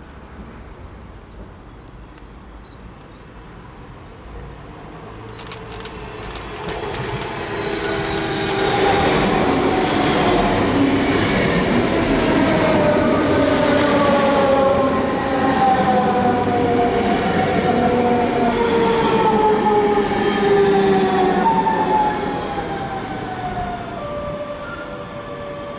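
DB Class 425 S-Bahn electric multiple unit approaching and running past close by: a rising rumble of wheels on rail with a few sharp clicks, then the traction motors' whine sliding steadily down in pitch as it goes by. The sound fades near the end.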